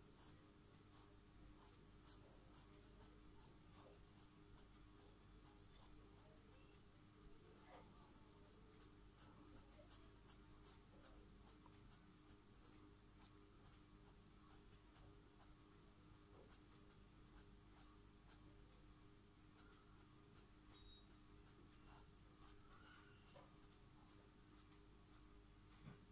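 Felt-tip marker scratching faintly across paper in a steady run of quick short hatching strokes, several a second, over a faint steady hum.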